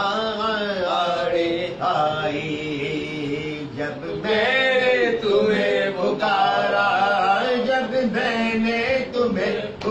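A man singing an Urdu devotional naat in long, drawn-out melodic phrases over a steady low drone.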